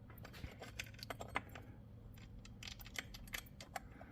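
Faint, irregular clicks and light metallic taps of small parts being handled while a bolt-on felling dog is fitted to a chainsaw.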